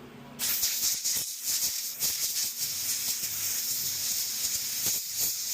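Compressed-air blow gun hissing as it blasts accumulated deposits off the STIHL SG 20 sprayer's handle filter screen. The hiss starts about half a second in and wavers in strength.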